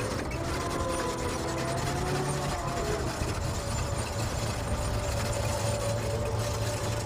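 Diesel engine of an M270 MLRS launcher vehicle running steadily: a low drone with a thin, steady whine above it.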